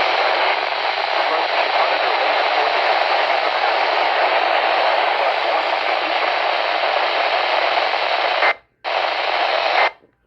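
Radio receiver static: a steady, loud hiss from a weather-band scanner with its squelch open on a channel carrying no voice. It cuts out briefly about eight and a half seconds in, resumes, and stops shortly before the end.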